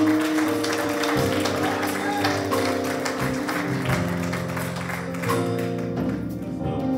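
Live church music: slow chords held on a keyboard, changing every second or two, with light tapping over them.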